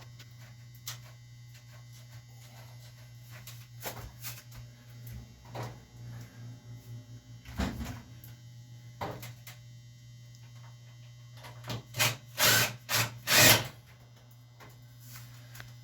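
Scattered knocks, clicks and rubbing from hands handling parts and tools during an installation, with a few louder scraping noises near the end, over a steady low hum.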